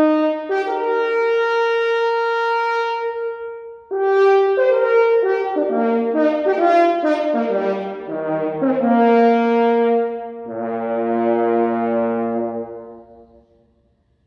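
Solo French horn playing unaccompanied: a long held note, then a phrase of shorter notes moving up and down, ending on a long lower note that fades away near the end.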